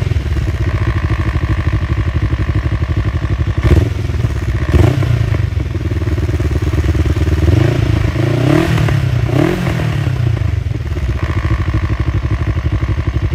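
Kawasaki ER-5's 500 cc parallel-twin engine running loud through an exhaust with the baffle removed, held at a fast idle. There are two sharp cracks about 4 and 5 seconds in, the revs rise and fall twice around the middle, and the engine settles toward idle near the end.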